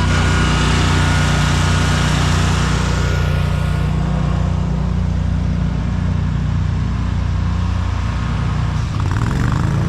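Commercial lawn mower engine running steadily under load while mowing, speeding up near the end.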